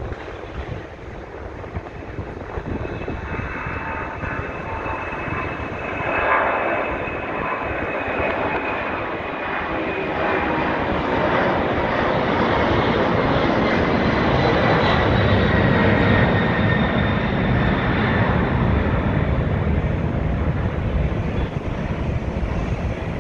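Boeing 767-300ER freighter's twin jet engines at takeoff power as it climbs out: a high whine that slowly falls in pitch over a steady roar, with a deep rumble building and loudest past the middle.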